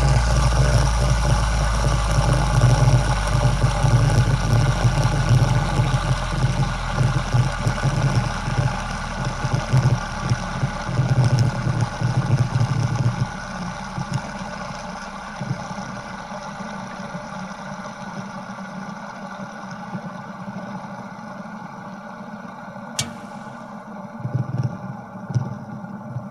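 An engine running, loud for the first half and then settling to a quieter, steady run about halfway through. A single sharp click comes near the end.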